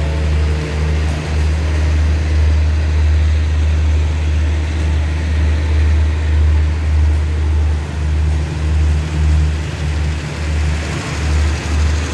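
A diesel-hauled passenger train stands at the platform with its engine running in a steady low rumble that rises and falls slightly.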